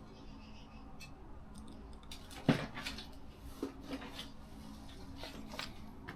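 Small plastic and metal kit parts being handled and set down on a table: scattered light clicks and clacks, with one sharper knock about two and a half seconds in.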